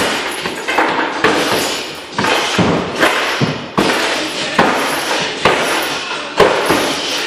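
Background music with a steady beat, about one strong hit a second, over thuds of punches landing on a heavy punching bag.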